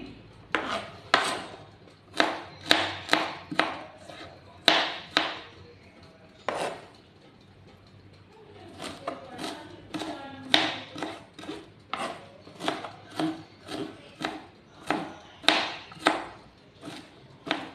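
Chef's knife chopping on a plastic cutting board: irregular sharp knocks, about one or two a second, with a pause of about two seconds midway.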